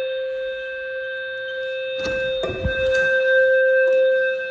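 Fire alarm horn speaker sounding a steady, low-pitched alarm tone between the repeated voice evacuation messages of a fire alarm test. A few knocks and a low thump come about two to three seconds in.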